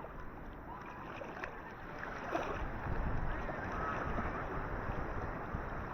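Ocean surf washing in on a beach: a steady rush of water that swells louder a little over two seconds in as a wave comes up the shore.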